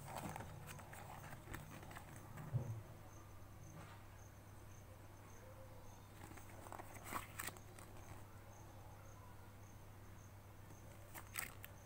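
Pages of an encyclopedia being turned and the book handled: a few short paper rustles and flips, about two and a half, seven and eleven seconds in, over a faint steady hum and a faint high pulsing tone.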